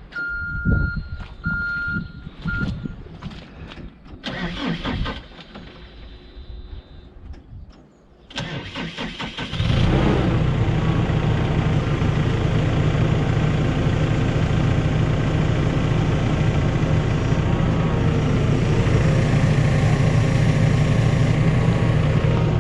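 A few short high beeps and scattered knocks, then about nine seconds in a machine's engine is started and runs steadily and loudly.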